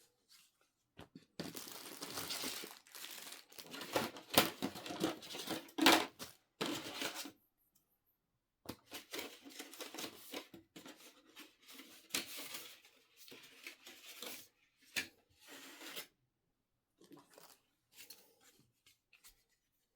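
Product packaging being torn open and handled: irregular bursts of tearing and crinkling with a few sharp clicks, a short pause about halfway, then only light scattered handling noises near the end.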